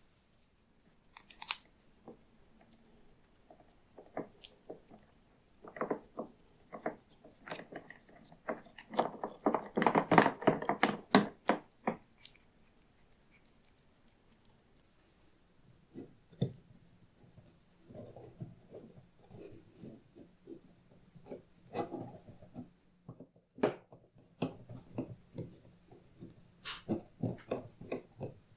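Hand work on a leather belt and its buckle: irregular scrapes, rubs and clicks. They come thickest about ten seconds in, pause briefly, and pick up again through the second half.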